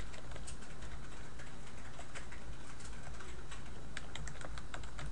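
Computer keyboard being typed on, an irregular run of sharp key clicks as a username is entered, over a steady low hum.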